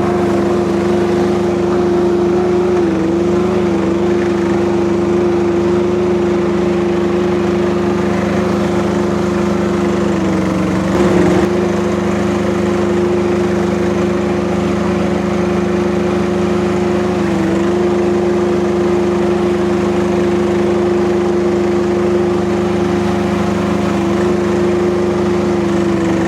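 Kubota diesel engine of a mini skid steer running steadily at working throttle, its pitch sagging briefly a few times as the machine takes load. There is a short clatter about eleven seconds in.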